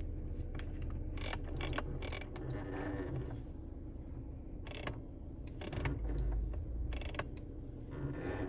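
Jeep Cherokee climate-control fan-speed knob clicking through its detents as it is turned back and forth, a dozen or so separate clicks, over the steady low hum of the cabin blower running.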